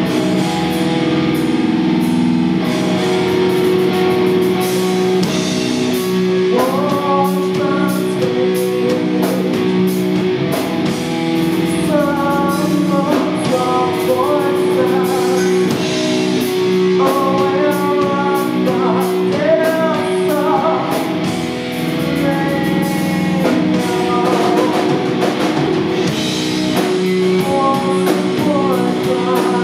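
Live rock band playing: electric guitar and bass hold low sustained notes over a drum kit, and a woman sings over them from about six seconds in.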